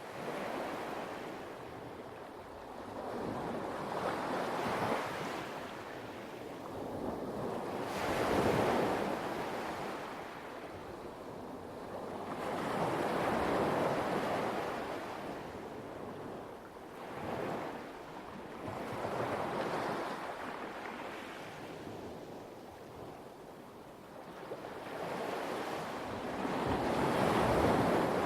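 Light waves washing onto a pebble beach, swelling and fading in slow surges every few seconds.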